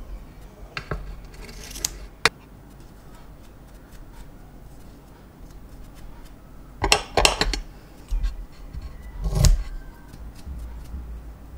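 A small bristle brush scraped through tufts of white fibre in short scratchy strokes. There is a quick run of several strokes about seven seconds in and a louder one about nine seconds in.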